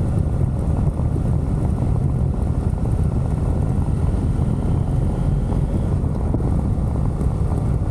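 Motorcycle engine running steadily under way on a sandy track, a constant low drone.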